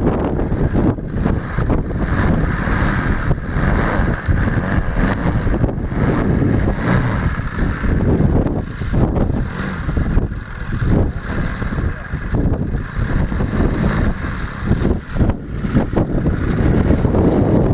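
Engine of a large radio-controlled Marchetti SF260 scale model plane running at low power as it taxis, its level rising and falling.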